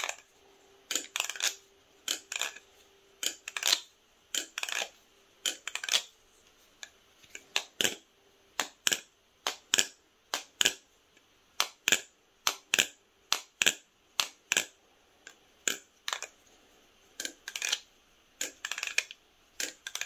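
Squid Industries Winter Nautilus balisong trainer being flipped: a long irregular run of sharp metallic clacks as the aluminium handles swing around and snap open and shut, about two a second with short pauses between tricks.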